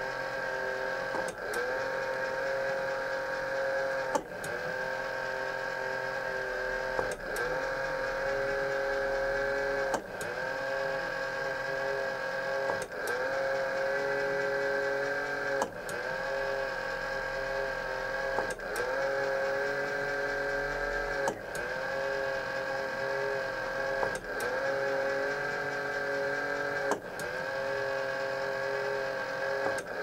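Tiny electric motor and gearing of an N scale model road roller whining steadily. About every three seconds there is a click, and the whine dips and then rises back up in pitch.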